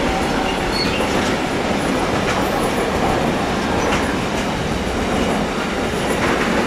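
Freight train rolling past, its wagon wheels running on the rails in a steady loud noise, with a brief high wheel squeal about a second in.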